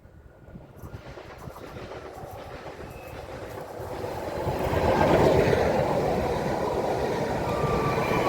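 Freight train approaching and passing close by, its sound building up about four seconds in and staying loud as the wagons run past.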